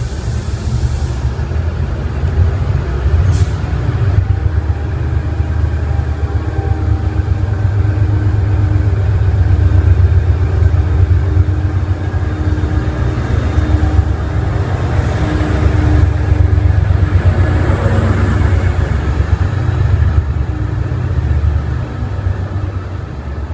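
Class 68 diesel-electric locomotive's Caterpillar V16 engine running with a deep, loud rumble as it pulls out, building to its loudest about a third of the way in and easing near the end. A short hiss of air comes at the very start.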